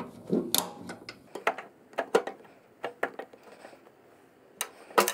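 Irregular sharp clicks and light metallic knocks of hand work on a motorcycle fuel tank's fuel tap (petcock), as its switch handle and fuel hose are taken off, about a dozen over the few seconds.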